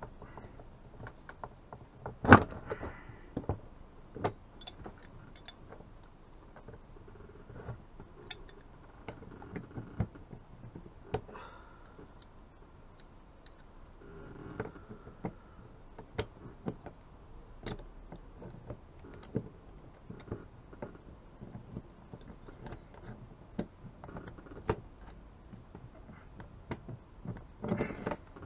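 Irregular clicks, knocks and scrapes of hand tools working on a chainsaw's housing during dismantling, with one sharp knock about two seconds in and a cluster of knocks near the end.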